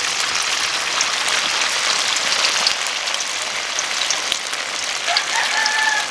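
Fish balls deep-frying in hot oil in a wok: a steady crackling sizzle.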